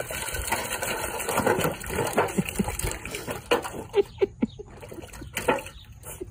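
A puppy splashing and pawing at water in a stainless-steel bowl: dense sloshing for the first three seconds or so, then a run of separate splashes that thins out toward the end.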